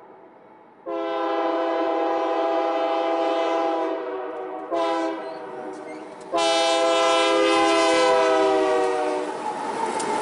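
Diesel freight locomotive's multi-chime air horn sounding a long blast, a short blast and another long blast, followed near the end by the rumble of the train rolling past.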